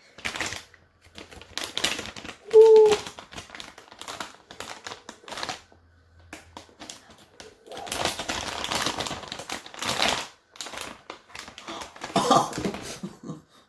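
Handling noise: rapid clicks and taps with crinkling of plastic packaging, busiest and longest from about eight to ten seconds in. Two brief murmured voice sounds come near the start and near the end.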